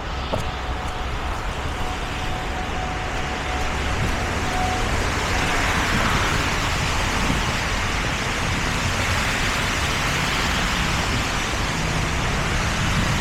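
Road traffic on a wet, snowy street: a steady hiss of tyres on slush over a low engine rumble, swelling about five seconds in as vehicles pass.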